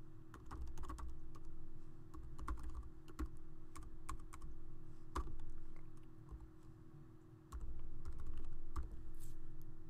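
Typing on a computer keyboard: slow, irregular keystrokes, with a steady low hum underneath.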